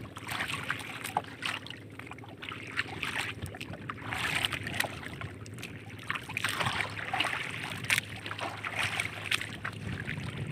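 Sea water lapping and splashing against the hull of a small outrigger canoe, with wind on the microphone. Scattered light knocks and clicks of hand line and gear being handled in the boat.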